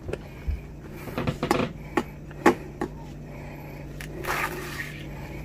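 Kitchen knife on a cutting board as salad peppers are picked up and cut: several short, sharp knocks of the blade and the peppers against the board, with a brief slicing swell about four seconds in.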